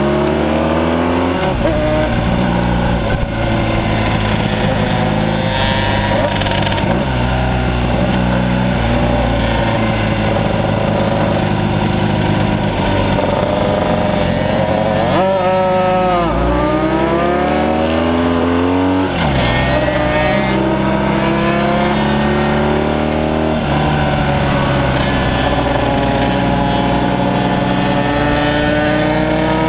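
Classic BMW racing motorcycle engine heard from on board, pulling hard with its pitch climbing and dropping back again and again as it shifts through the gears. About halfway through it revs up sharply, falls away for a tight bend, then climbs again.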